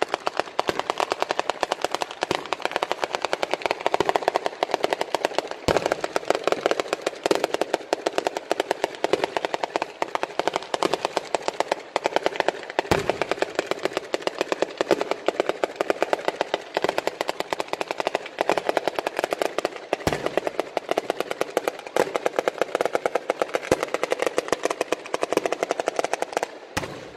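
Sanseverese-style ground firework battery: a long chain of firecrackers laid along the ground going off in rapid, continuous crackling, like machine-gun fire. A few heavier single bangs stand out about 6, 13 and 20 seconds in, and the crackling cuts off right at the end.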